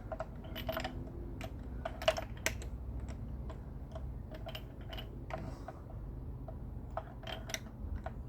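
Irregular sharp metallic clicks and taps, about twenty of them with a short ringing note, loudest around two seconds in, from hand tools working on a Honda 9.9 outboard's spark plug.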